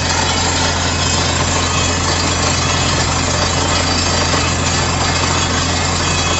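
Truck-mounted borehole drilling rig running steadily as it drills into basement rock: a constant low engine drone under a loud, even noise from the rotating drill string and spraying slurry.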